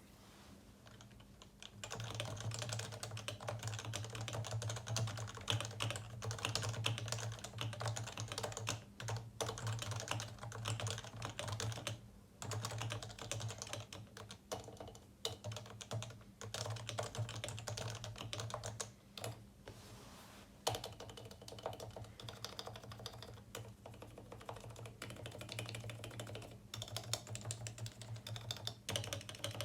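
Continuous typing on a Realforce 87U tenkeyless keyboard with 55g Topre switches lubed with Krytox 205g0. The rapid keystrokes start about two seconds in and break briefly twice, with a faint steady low hum underneath.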